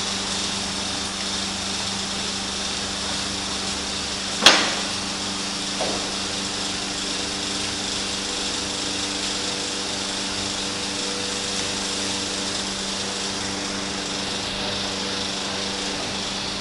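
Steady mechanical hum of foundry machinery, running on without change. One sharp knock about four and a half seconds in, and a fainter one about a second later.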